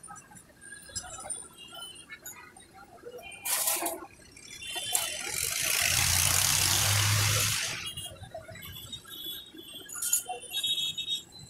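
Kachoris deep-frying in a large kadai of oil, with faint crackles and the odd clink of a wire skimmer. About five seconds in, a passing motor vehicle swells and fades over about three seconds, with a low engine hum, and is the loudest sound.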